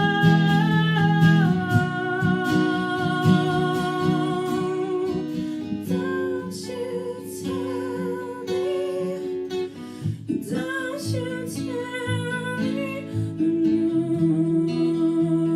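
Live song: acoustic guitar strummed under long held, wavering sung notes.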